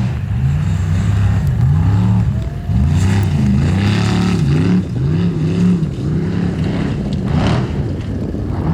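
Formula offroad race truck's engine revving hard, its pitch swinging up and down over and over as the throttle is worked, with a few short bursts of hiss.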